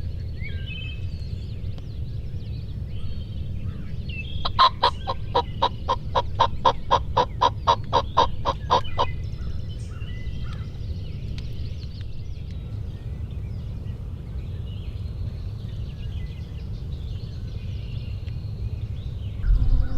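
Turkey calling: a fast run of about twenty evenly spaced, loud notes lasting some four seconds, over a steady low rumble and faint songbird chirps.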